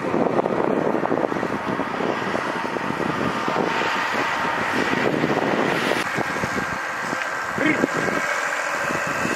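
A flock of sheep moving over snow: a steady, dense shuffle of many hooves.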